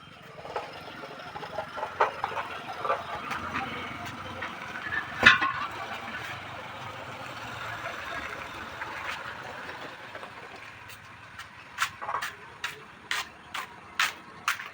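Metal tyre-changing equipment being handled: clanks and knocks, with one loud clank about five seconds in and a run of sharp metallic knocks near the end, over a steady hiss.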